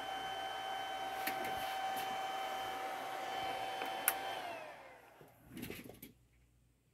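A Bedini-style pulse motor running with a steady whine and whir, then a click about four seconds in, after which the whine falls in pitch and dies away as the machine is shut down and spins down. A few faint knocks follow.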